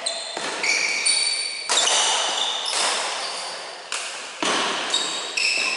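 Badminton rally: racket strings hitting the shuttlecock about once a second, each sharp smack echoing through a large hall, with high squeaks of court shoes on the wooden floor between shots.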